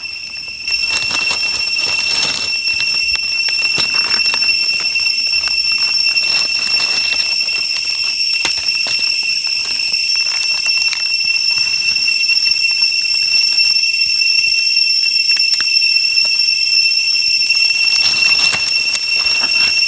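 An insect calling loudly with one steady, unbroken high-pitched tone that sets in about a second in, over the crackle of dry leaf litter being walked through.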